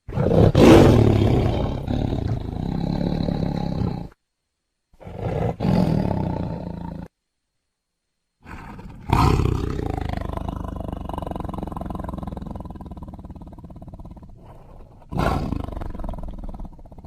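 Tiger roaring in separate cut-together recordings with dead silence between them: a loud roar at the start lasting about four seconds, a shorter one about five seconds in, and a longer one from about eight and a half seconds that fades gradually, broken by another sharp roar near the end.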